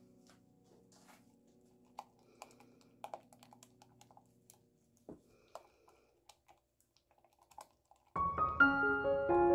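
Faint, scattered clicks and scrapes of a silicone spatula stirring thick cream in a glass measuring jug. About eight seconds in, piano music starts and is much louder.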